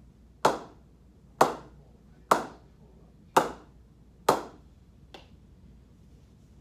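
A cricket ball struck against the face of a willow cricket bat: five sharp, ringing knocks about a second apart, then a faint sixth. The bat pings well off the face all over the blade.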